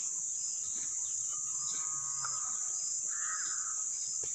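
Steady high-pitched insect drone, with a faint pulsing chirp under it and a couple of bird calls about two and three seconds in.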